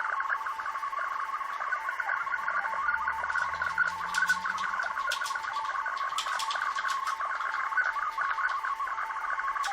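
Shortwave digital data transmission heard through a WebSDR receiver: a steady, rapidly warbling buzz of tones. Static crackles come in from about three seconds in.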